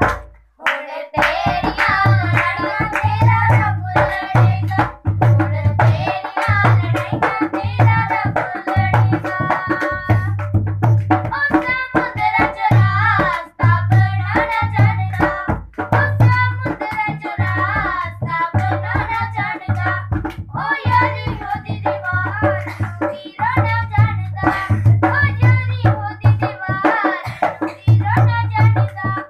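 Church worship song: a singer's voice over drums and percussion with a steady beat, after a brief break just after the start.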